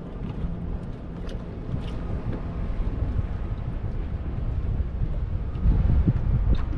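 Wind rumbling on the microphone, with a faint steady hum and a few light clicks.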